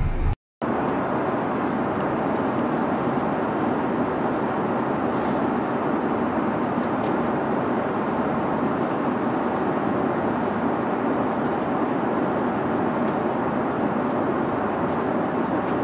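Steady rushing cabin noise of an Airbus A330-300 airliner heard from inside the cabin, starting after a brief gap about half a second in.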